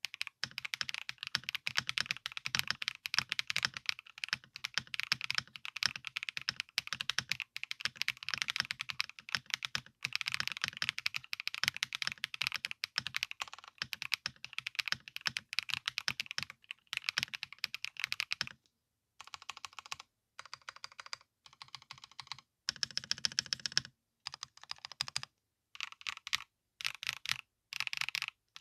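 Typing on a foam-filled DROP CSTM80 tenkeyless mechanical keyboard with HMX Cheese linear switches and DCD Space Whale keycaps, a dense, fast run of clacky keystrokes. About two-thirds of the way through, the typing breaks into short bursts separated by brief pauses.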